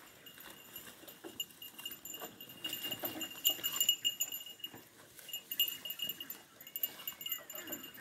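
Goats bleating now and then, with a steady high-pitched chirping underneath.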